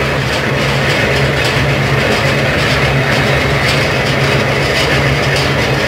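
Small motorised sugarcane mill running steadily with a low hum while cane stalks are fed through its rollers, the crushing cane adding a rough crackle over the motor.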